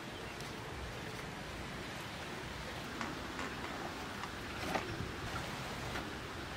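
Coconut water poured from a steel ladle into plastic ice-lolly molds packed with cut fruit: a steady soft trickle, with a few faint clicks partway through.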